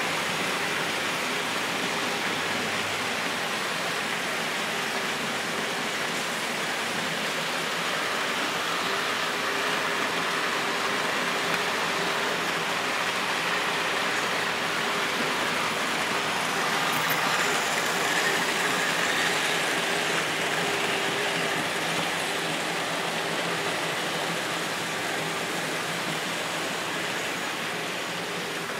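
HO-scale Märklin model trains running on the layout track: a steady whir of small electric motors and wheels on rails, a little louder around the middle.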